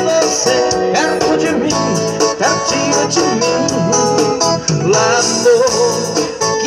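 A man's voice singing a song live through a microphone, accompanied by a Yamaha electronic keyboard with a steady rhythmic backing.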